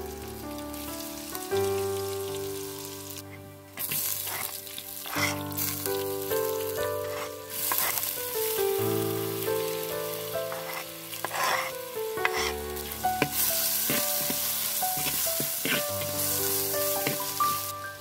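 Hot oil sizzling in a clay cooking pot as garlic, then sliced onions, curry leaves and green chillies fry in it, with clicks and scrapes of a wooden spoon stirring. Piano music plays underneath.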